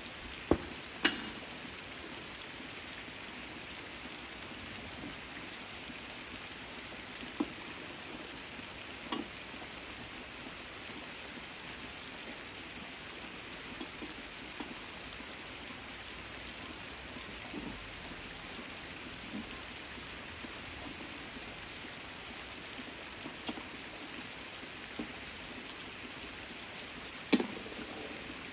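Steady rain falling on the leaves of persimmon trees. A few louder single drops land close by, the loudest about a second in and again near the end.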